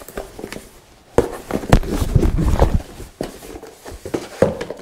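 Cardboard box and its packaging insert being handled while a kit is unpacked on a tabletop: irregular rustling and light knocks, busiest from about a second in to nearly three seconds.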